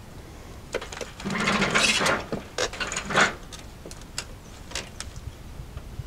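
A heavy cedar log being shifted on a steel sawmill bed with a cant hook: about a second of scraping and grinding near the middle, then several sharp knocks, the loudest just after.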